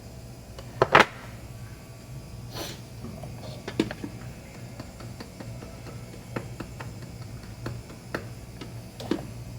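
Scattered small clicks and knocks of tools and parts being handled during a laptop-charger repair, over a steady low hum. The loudest is a sharp double knock about a second in, with lighter ticks after it.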